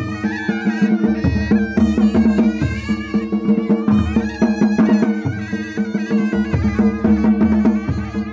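Traditional Ladakhi dance music: a reedy shawm, the surna, plays a wavering melody over a steady held tone, while daman drums beat a repeating pattern about every second and a third.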